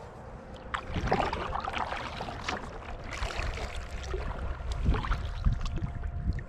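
Kayak paddle strokes dipping and splashing in the water, uneven and starting about a second in.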